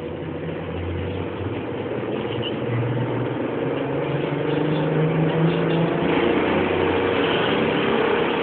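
Ikarus-GVM 280.94 articulated trolleybus accelerating, heard from inside the passenger cabin: the electric traction drive hums, its pitch climbing in steps as the vehicle gathers speed, over rising running noise.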